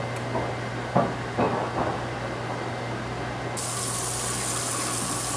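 Pot of penne boiling, with three knocks about a second in. About three and a half seconds in, a sudden steady gush of water begins: the pasta water is poured from the steel pot into a metal colander in a stainless sink, with the tap running.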